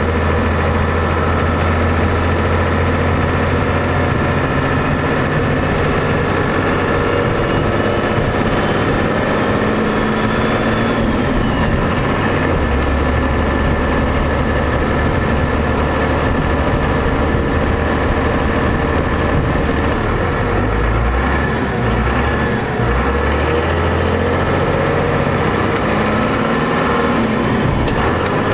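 Dodge Ram's turbo-diesel engine with compound turbos, heard inside the cab, running steadily under way while towing a trailer; its note changes a little over a third of the way in and again about three quarters of the way through.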